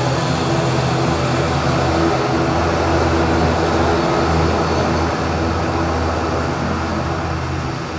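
ATR-72 turboprop airliner's twin engines and propellers running with a steady hum of several pitched tones over a rushing noise.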